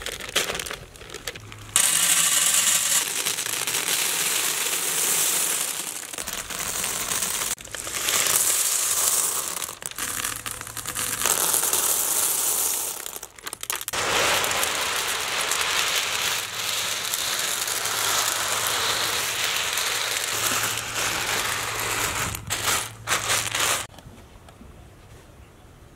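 Dry elbow macaroni pouring out of a plastic packet onto a plate: a long rattling, crinkling shower of small hard pieces with a few short breaks, stopping near the end.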